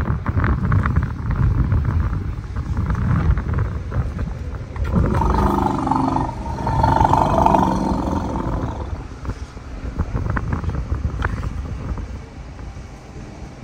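African elephant giving a loud, drawn-out call about five seconds in, lasting some three seconds, over a low rumble of wind on the microphone.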